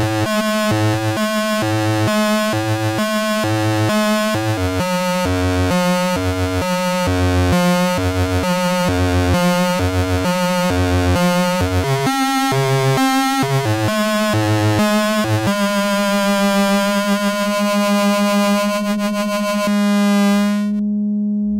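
Schlappi Engineering Angle Grinder, an analog quadrature VCO and waveshaper Eurorack module, putting out a harsh, buzzy synth tone that pulses about twice a second. About fifteen seconds in the pulsing stops and a steady buzzing tone holds; near the end the harsh upper overtones drop away, leaving a plainer tone.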